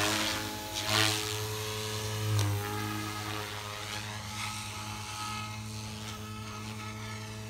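Electric RC helicopter (a Goblin 380 converted to a Goblin 420) in flight: steady rotor hum and electric motor whine, swelling louder about a second in and again around two and a half seconds, then holding steady.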